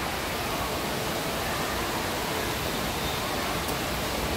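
Steady rushing and splashing of water-park water, an even, unbroken wash of noise.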